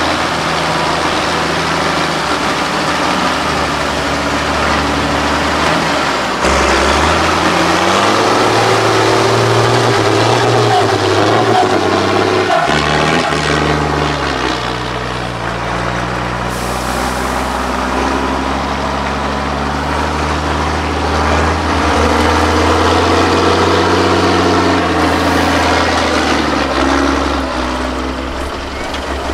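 Diesel engine of a 6x6 Mercedes-Benz off-road trial truck working under load, its pitch rising and falling as the driver works the throttle crawling through mud and up a rocky slope.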